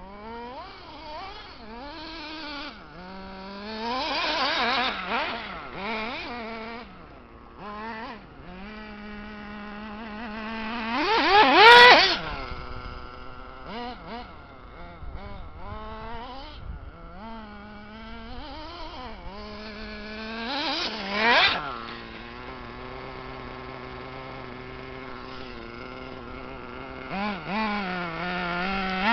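Reely Rex X 1/8-scale RC buggy's motor whining, its pitch rising and falling as the throttle is worked. Loud, fast-rising bursts of acceleration come about 4 s, 12 s and 21 s in, the one near 12 s the loudest.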